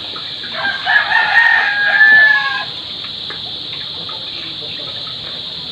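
A rooster crowing once: a single pitched crow starting about half a second in, rising and then held for about two seconds before it stops.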